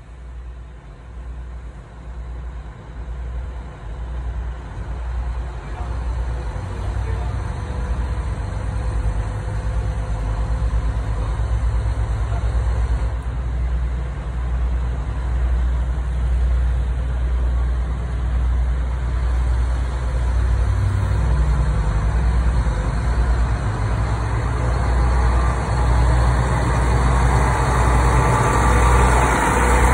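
KiHa 141-700 series diesel railcar creeping into a station. Its engine's low rumble grows steadily louder as the cars draw up alongside.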